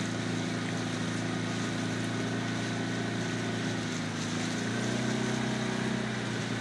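Small outboard motor running steadily, the kind on a coaching launch pacing a rowing shell, over a broad hiss of wind and water. About five seconds in, its note dips a little and gets slightly louder.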